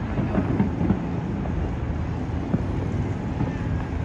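Distant fireworks going off across the city: a few short pops in quick succession about half a second in and another about two and a half seconds in, over a steady low rumble.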